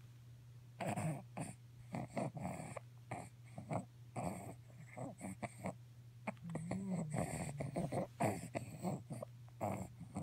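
A baby with hiccups, making a quick, irregular string of short hiccups, grunts and squeaky breaths, with a brief squeak about two-thirds of the way through.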